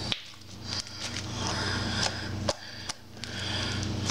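Slime being mixed and squished by hand with foam beads in it, giving a run of small crackles, clicks and squelches.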